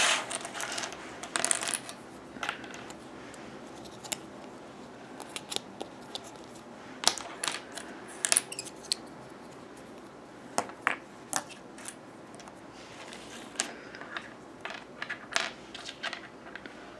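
Plastic toy pieces being handled: irregular clicks and light taps scattered through, a few of them sharper clacks.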